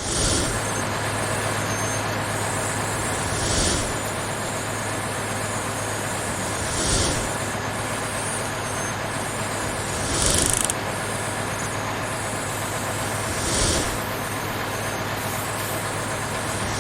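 Steady heavy-vehicle engine drone with a low hum. A short air-brake-like hiss recurs at even intervals about every three and a half seconds, like a looped sound effect.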